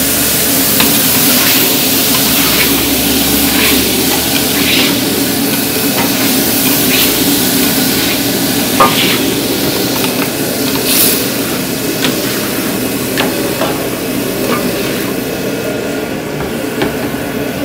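Food sizzling as it fries in a hot pan, stirred with a metal utensil that gives scattered clicks and scrapes, one sharp knock about nine seconds in. A steady hum runs underneath.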